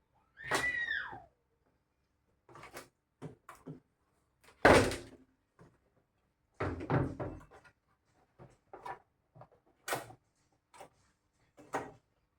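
A short squeak falling in pitch, followed by a string of irregular knocks and clunks. The loudest clunk comes about five seconds in.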